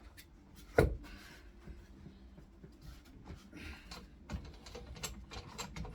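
A glued-up wooden assembly and its clamps being handled on a workbench: scattered light clicks and taps, with one sharper knock about a second in.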